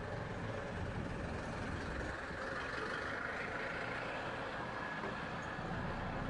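Steady, even machinery hum and noise of a factory hall, with no distinct knocks or changes.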